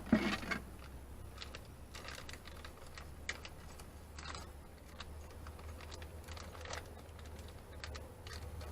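Scattered light clicks and short rustles of screws and their plastic package being handled, over a faint steady low hum.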